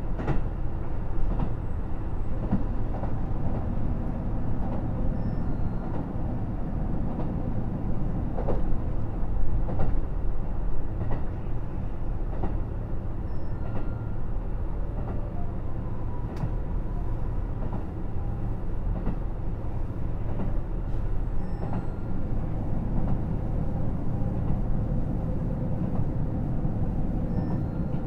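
KiHa 75 diesel railcar heard from on board while running: a steady low rumble of the diesel engine and running gear, with faint occasional clicks from the wheels and track.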